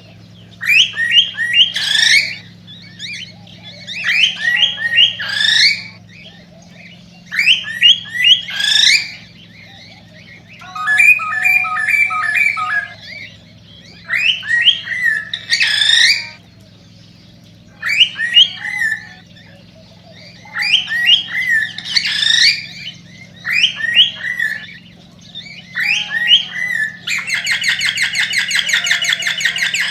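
Male cockatiel singing its mating song: short phrases of rising whistled notes about every two seconds, ending in a fast buzzy trill near the end, over a steady low hum.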